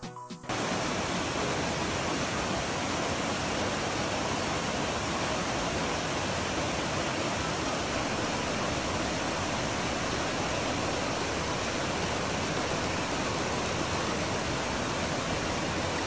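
Waterfall spilling over rock ledges into a stream: a loud, steady, even rush of falling water that cuts in abruptly about half a second in, after a brief snatch of music.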